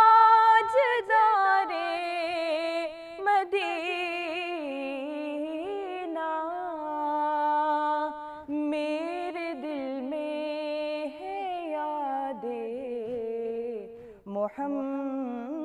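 A woman singing a naat, drawing out long ornamented notes with few clear words.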